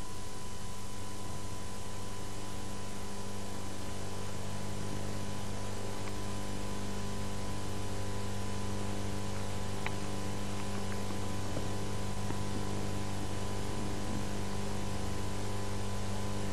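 Steady low electrical mains hum with a constant background hiss.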